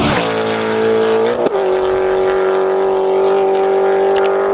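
Car engine running at high, steady revs, with a quick flick up and drop in pitch about a second and a half in, as at a gear change, then holding a steady note.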